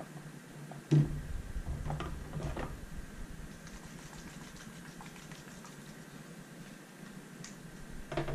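Workbench handling sounds from hand-staining a guitar body: a sharp knock about a second in, then faint scattered taps and rustles.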